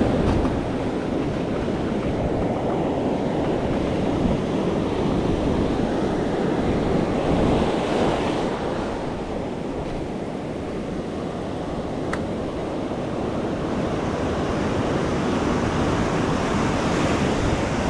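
Ocean surf washing onto a beach, with wind buffeting the microphone. The wash swells about halfway through and again near the end.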